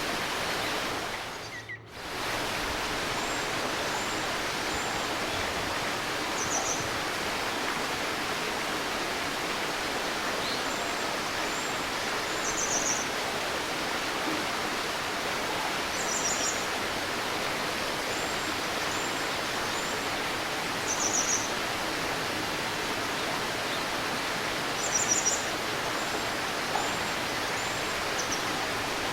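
Steady murmur of a flowing stream, with a small bird giving short high chirps and trills every few seconds. The water sound dips briefly about two seconds in.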